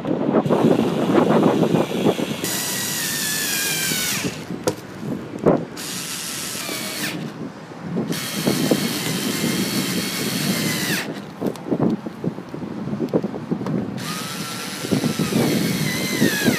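Cordless power screwdriver running in four separate bursts as it turns screws in an aircraft access panel, its motor whine dropping in pitch during each run.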